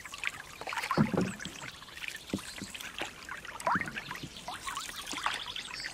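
Canadian canoe paddles dipping and pulling through canal water, with louder splashing strokes roughly every second and a half.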